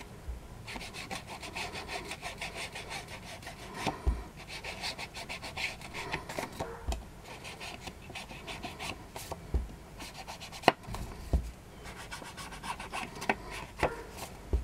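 Foam ink-blending tool rubbed over the edge of a paper circle in quick repeated scuffing strokes, inking it, with a few soft knocks in between.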